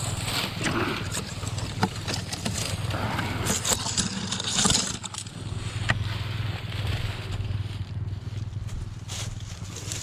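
Irregular crunching, snapping and scraping of dry brush and leaves, over a steady low drone.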